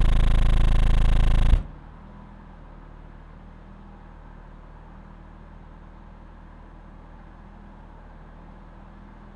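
27 Hz sine test tone played loud through a car subwoofer driven by two strapped C2 Audio Recon 1.6 amplifiers, with a harsh buzzing edge. It cuts off suddenly about one and a half seconds in, leaving a low steady hum.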